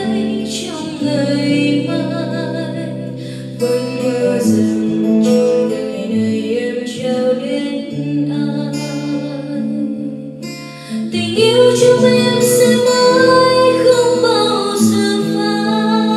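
A woman singing a Vietnamese song into a microphone, accompanied by an acoustic guitar. The music gets louder about eleven seconds in.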